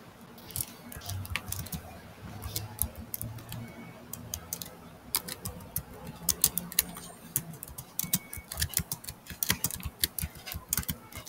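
Computer keyboard being typed on: irregular runs of key clicks, sparse at first and coming quick and dense from about halfway through.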